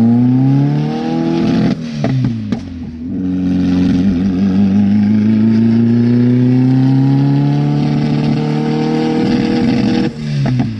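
Audi A4's engine heard from inside the cabin, accelerating through the gears. Its pitch rises, drops at a gear change about two seconds in, then climbs slowly through the next gear for about six seconds before another shift near the end.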